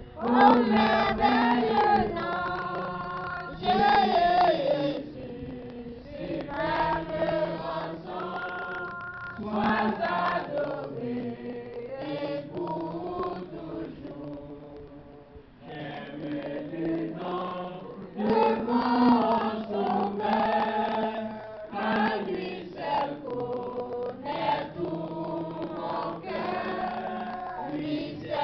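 Church congregation singing a worship song together, in sung phrases with held notes and short breaks between lines.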